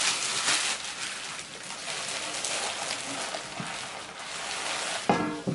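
Clear plastic wrap crinkling and rustling as it is pulled off a stainless-steel stockpot. Near the end there is a brief, louder pitched sound.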